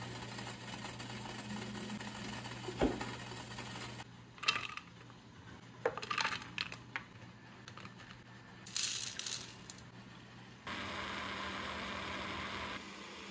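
Metal kitchen items clinking and clattering, over a steady low hum in the first few seconds. A brief hiss comes near the end, followed by a steadier hiss lasting about two seconds.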